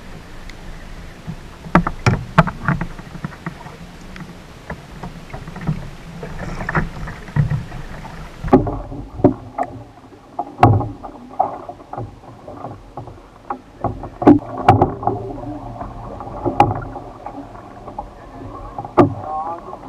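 Water slapping and splashing against a plastic fishing kayak's hull, picked up by a camera mounted close to the waterline, with repeated sharp knocks and taps. About eight seconds in, the sound turns duller and more muffled.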